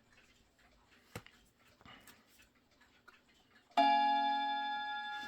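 A hammer strikes the chime rod of a Linden wall clock once, about four seconds in, and it rings with several overtones, slowly dying away. Before it there are only a few faint clicks.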